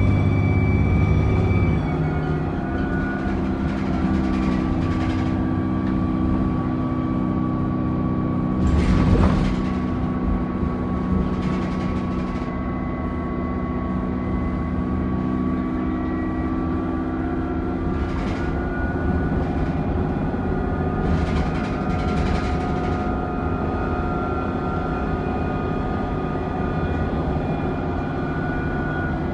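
Alexander Dennis Enviro400 Trident double-decker bus running, its diesel engine carrying a steady high turbo whine over the engine note. A few short bursts of hiss come and go, the loudest about nine seconds in.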